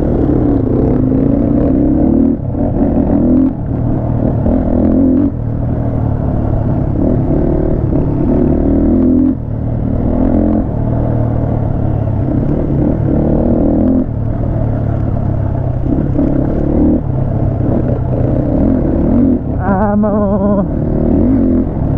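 Crossfire HJ 250 dirt bike engine running under load, the throttle opened and eased off in bursts of a second or two so the revs keep rising and dropping.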